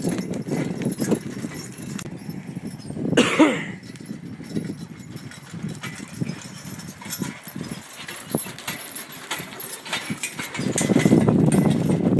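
Team of two harnessed horses pulling a flatbed wagon over a dirt arena: steady hoofbeats with harness and wagon rattle. A single short loud call cuts in about three seconds in, and the rattle and rumble grow louder near the end as the wagon comes close.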